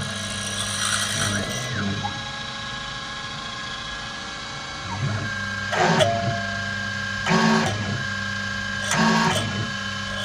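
Small CNC vertical mill peck drilling a metal fixture plate: the spindle runs with a steady whine and hum. In the second half a rasping burst comes about every second and a half as the drill pecks down into the plate and pulls back.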